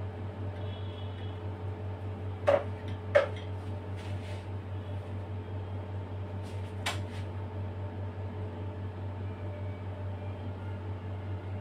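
Steady low machine hum, with three sharp knocks: two close together about two and a half and three seconds in, and one near seven seconds.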